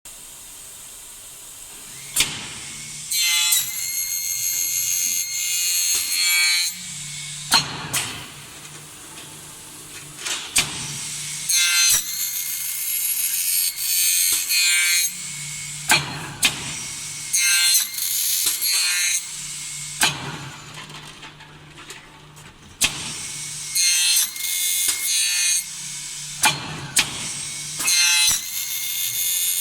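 CNC channel-letter bending machine (BD-50) working metal strip. A low motor hum runs in stretches, broken by sharp clicks and by repeated short bouts of a high, rasping, saw-like cutting sound.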